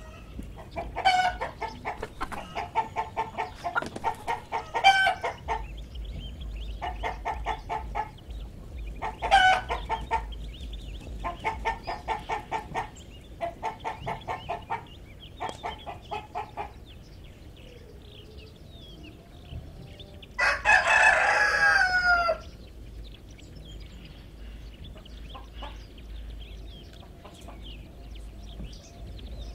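Hens clucking in quick rhythmic runs, several bursts in a row over the first half. About two-thirds of the way through a rooster crows once, a loud call of about two seconds that falls in pitch at its end.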